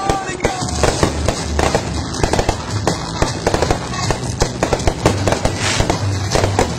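A multi-shot consumer firework cake firing from the ground: a rapid, unbroken string of launch pops and crackling bursts, several a second.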